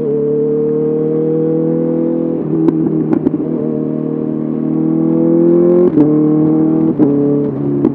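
Honda CBR 650R's inline-four running through an SC-Project SC1R exhaust, its pitch climbing slowly as the bike pulls, with gear changes about two and a half seconds in and again around six seconds in, each marked by a few sharp pops or clicks.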